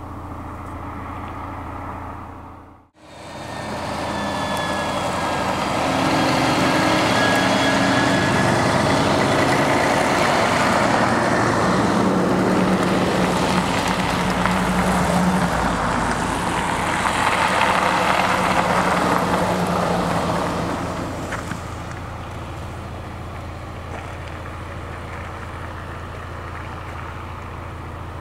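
A fire engine and other emergency vehicles driving past. Engine and tyre noise swells from about four seconds in, stays loud for around fifteen seconds, then fades away.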